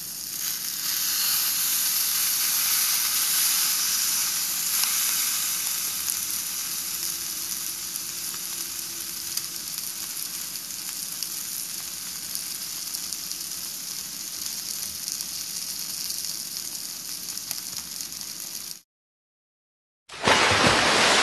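Seasoned, already-steamed chicken pieces sizzling on a hot grill, a steady hiss. Near the end it cuts off, and after a short silence a loud rushing whoosh begins.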